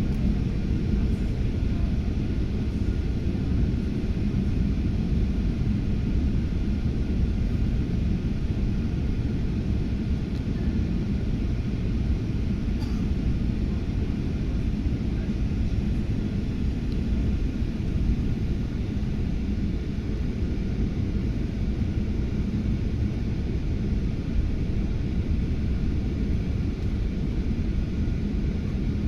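Airliner cabin noise: a steady low rumble of engines and rushing air, unchanging throughout, with a few faint steady tones above it.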